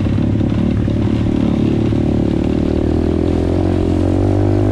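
Apollo RFZ pit bike's single-cylinder engine running at a steady, nearly even speed while being ridden.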